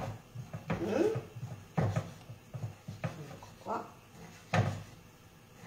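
Kitchen knife cutting guanciale on a wooden cutting board: about half a dozen irregular wooden knocks, roughly one a second, as the blade strikes the board.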